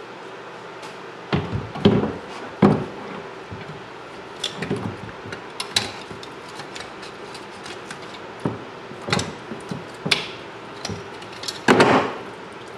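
A knife scraping and picking at a boiled bear skull, with irregular sharp clicks and knocks of blade and bone, loudest around two seconds in and again near the end.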